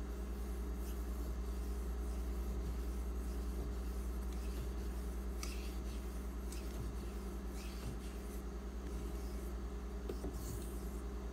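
Steel knife blade stroked across a wet 6000-grit Imanishi water stone: a handful of short, faint scratchy strokes at uneven intervals, over a steady low electrical hum.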